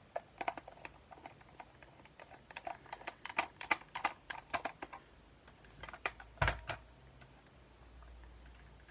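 A run of irregular quick clicks and taps, several a second, ending in a heavier knock about six and a half seconds in.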